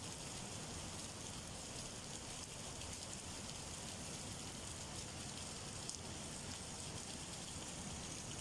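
Heavy rain falling steadily on a wet street and parked cars in a windstorm, an even hiss that does not let up.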